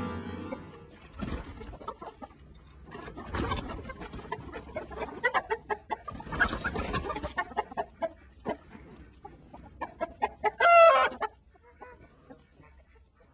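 Chicken clucking in a run of short, irregular calls, with one louder, drawn-out squawk near the end.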